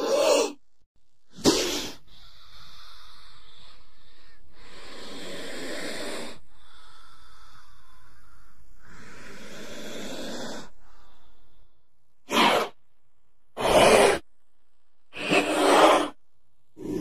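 Snake hissing: two short, sharp hisses, then a long breathy hiss lasting about ten seconds that swells twice, then three more short hisses near the end.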